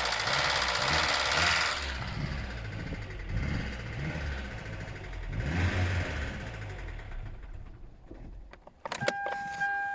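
2012 Hyundai Elantra engine running with a knock, surging twice and then dying away about eight and a half seconds in, as though stalling, the fault the owner asks about. It is followed by a few clicks and a steady electronic tone.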